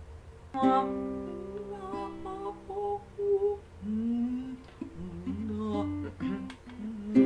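Acoustic guitar played as the intro to a song: a chord struck about half a second in, then a run of plucked chords and single notes.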